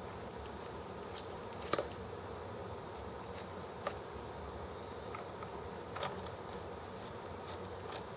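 A handful of small, sharp metallic clicks and ticks, the loudest about a second in, from a screwdriver working on the fittings of a miniature ET8 model engine. Under them runs a steady low hum.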